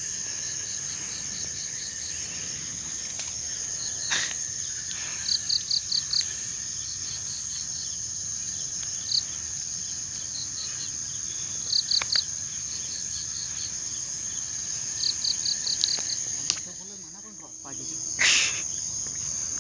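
Crickets and other insects at dusk: a steady high-pitched trill throughout, with bursts of four or five quick chirps every few seconds. Near the end comes a short swish as the spinning rod is cast.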